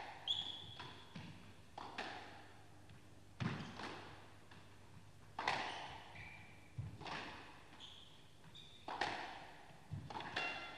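Squash rally: the ball smacking off rackets and the court walls every one to two seconds, each hit ringing briefly in the court, with a few short squeaks from the players' shoes on the floor.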